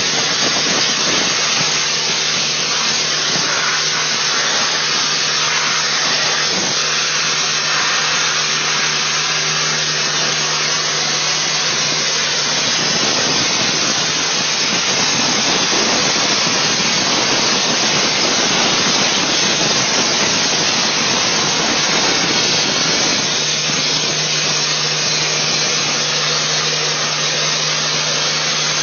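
Dustless (wet abrasive) blasting nozzle running continuously: a loud, steady hiss of water, air and abrasive striking a painted steel pipe and stripping its coating. A low steady hum sits underneath, fading in the middle and returning near the end.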